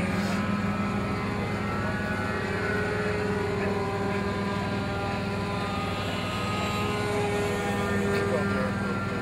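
A small engine or motor running steadily, its hum holding several pitches that drift only slightly.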